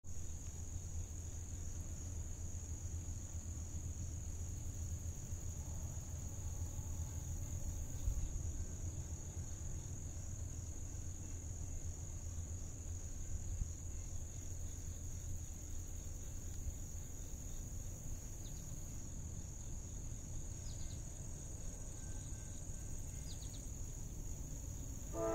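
Insects droning steadily in one high-pitched note, over a steady low rumble.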